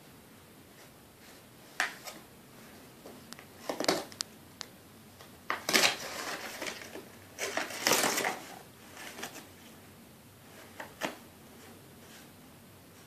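A dog tearing and chewing a small cardboard box and its paper, in irregular bursts of ripping and crunching, loudest about six and eight seconds in.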